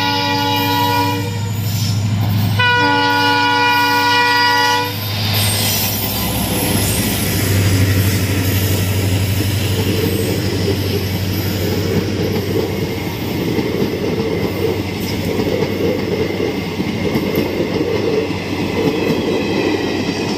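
Indian passenger train's diesel locomotive sounding its horn in two blasts, a short one and then a longer one about a second and a half later. The train then rumbles past steadily, its coach wheels clattering over the rails.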